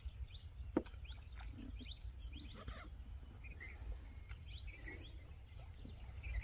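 Outdoor ambience: faint short chirps and a steady high insect-like tone over a low rumble, with one sharp click just under a second in.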